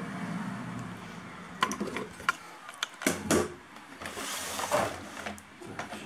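A handful of sharp plastic clicks and knocks as an ILIFE V7s Pro robot vacuum's housing and bumper are handled on a wooden table during reassembly, over a faint steady hum.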